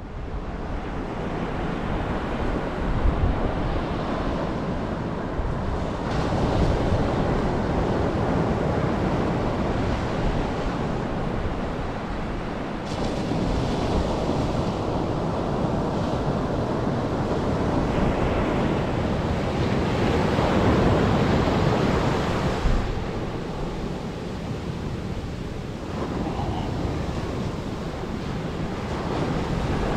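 Ocean surf breaking and washing up over a sandy beach: a steady rushing wash that swells and ebbs, loudest about twenty seconds in.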